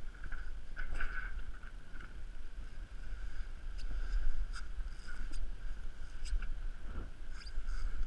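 Wind buffeting a body-worn action camera high up a sailing yacht's mast, heard as a steady low rumble with a faint steady whine. Scattered light clicks and knocks, about a dozen, come from the climber's harness hardware and the rigging.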